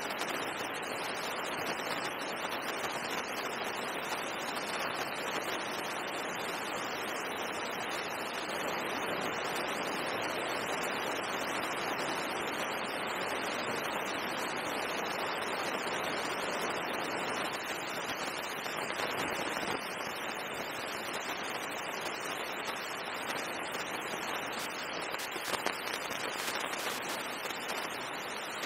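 Steady, even hiss, with one faint click near the end.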